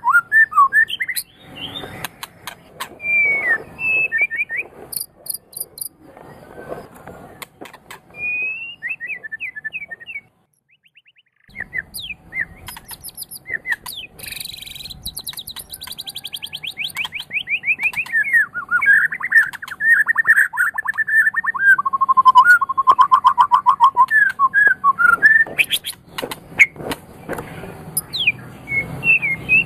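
White-rumped shama (murai batu, Medan type) singing a loud, varied song of whistled phrases, sharp chips and fast stuttering trills. It falls silent briefly about ten seconds in, then gives a long rapid trill that slides down in pitch.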